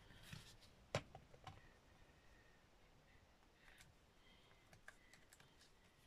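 Faint, scattered clicks and taps from a glue bottle and small wooden embellishments being handled and set down on a craft cutting mat, with one sharper click about a second in.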